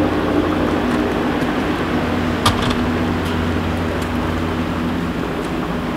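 Steady low mechanical hum over a constant wash of noise, with one sharp click about two and a half seconds in.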